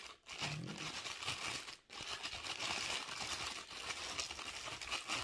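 Plastic packaging crinkling and tearing as it is pulled off a new power tool, with two short pauses.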